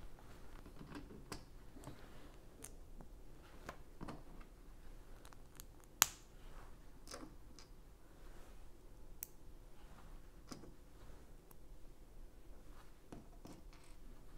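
Small LEGO plastic pieces being handled and pressed together: scattered light clicks and taps, with one sharper, louder click about six seconds in.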